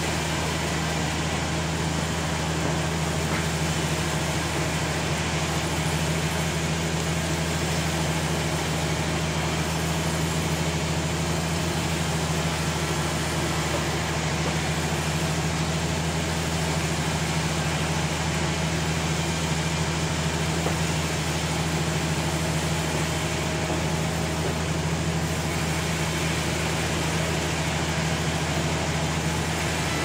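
Sawmill engine running steadily at a constant speed, a steady low hum with no change in pitch.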